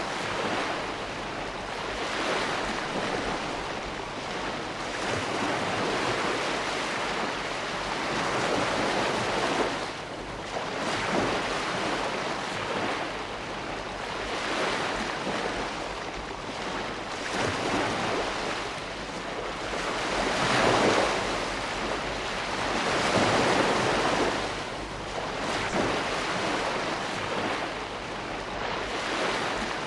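Ocean waves breaking and washing on a shore, a continuous rush of surf that swells and ebbs every few seconds, loudest about two-thirds of the way through.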